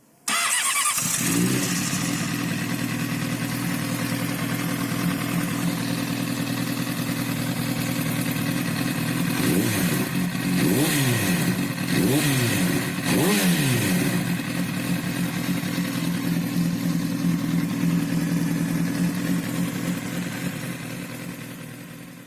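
Honda CBR sport motorcycle's inline-four engine running at idle, with about four quick throttle blips rising and falling roughly ten seconds in, then settling back to idle. The cam chain tensioner has been tightened by hand to cure a rattle.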